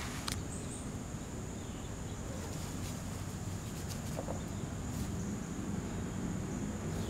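Outdoor summer ambience: a steady high-pitched insect drone over a low rumble, with a faint click or two.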